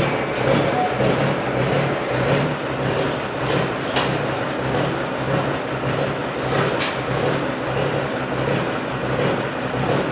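Heavy vehicle engine running steadily with a low, evenly pulsing note, with two sharp metallic clanks, one about four seconds in and one near seven seconds.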